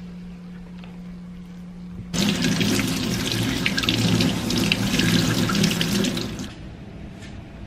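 Kitchen tap turned on and running into a sink, starting abruptly about two seconds in and stopping after about four seconds.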